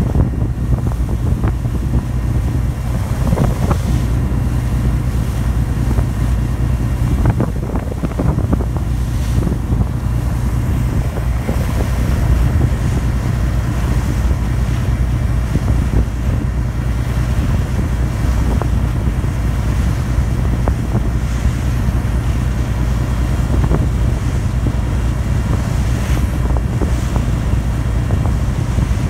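Meon Kaiun ferry under way: a steady low drone from its diesel engines, with wind and the rush of water along the hull.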